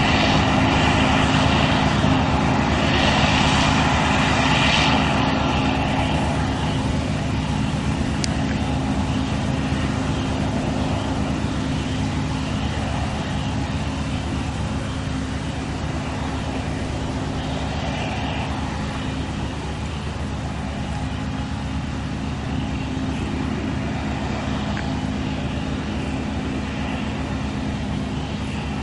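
New Holland CSX 7050 combine harvester running steadily as it harvests standing wheat: an even engine and threshing drone, getting a little quieter after about five seconds.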